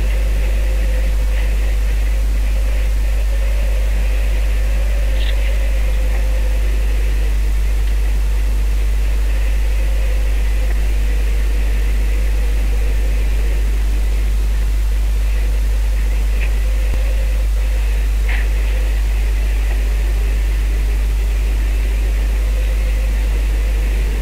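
Steady drone of a boat's engine under way, mixed with a loud, even rushing noise of wind and water on the microphone, with a few faint ticks.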